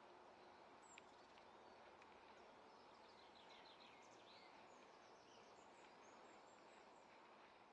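Near silence: faint outdoor ambience by open water, with a run of faint bird chirps through the middle and a faint click about a second in.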